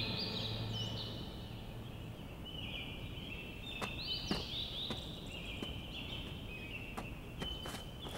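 Birds chirping in many short, high calls that sweep upward, over quiet outdoor ambience, with a few sharp taps from about four seconds in. A low note from the score fades out in the first second.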